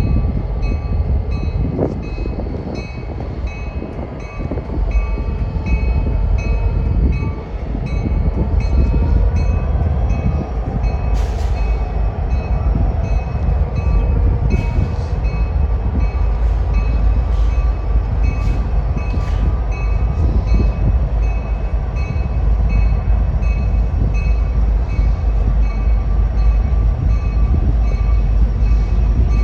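Reading Northern freight train with three diesel locomotives passing, a heavy steady low rumble of engines and rolling cars that grows louder about seven seconds in, with scattered sharp clicks from the wheels.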